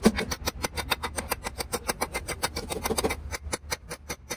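A metal hammer tapping quickly and steadily on the excavator hydraulic pump's end housing around the shaft bearing, about seven light blows a second.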